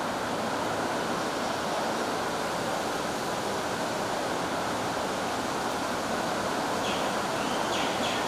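Steady, even hiss of room and recording noise. Near the end come a few faint short squeaks of a marker drawing on a whiteboard.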